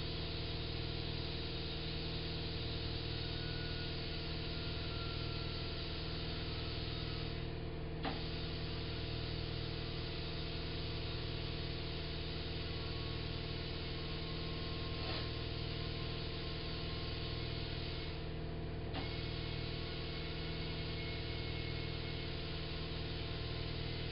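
A car tire being inflated with compressed air through an air chuck: a steady hiss of air over a steady hum. The hiss stops briefly twice, each time ending with a click as the chuck goes back on the valve.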